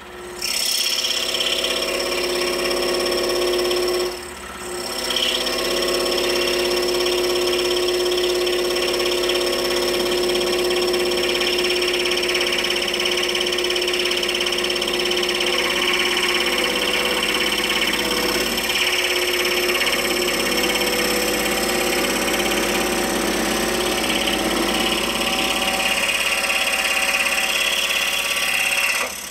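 Scroll saw running with its blade cutting through a thick wooden blank in a compound cut. It is a steady machine sound with two brief dips in the first few seconds, and it stops at the end.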